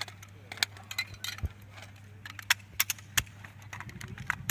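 Sharp metallic clicks and clacks at irregular intervals as a rifle's parts are taken apart and fitted back together, over a steady low hum.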